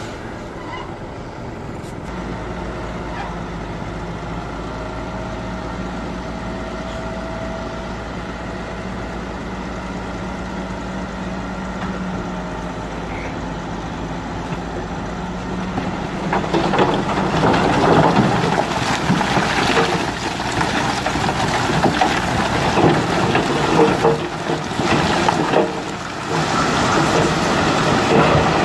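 Loaded tipper dump truck's diesel engine running steadily while the body is hoisted. About sixteen seconds in, the load of broken rock starts sliding out of the tipped body and crashing onto the ground in a loud, continuous clattering rumble that lasts to the end.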